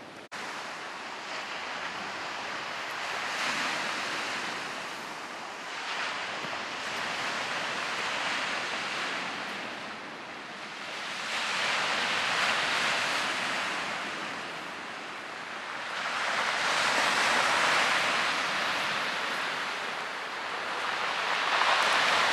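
Sea waves breaking on a rocky shore, a steady rush of surf that swells and fades every four to five seconds.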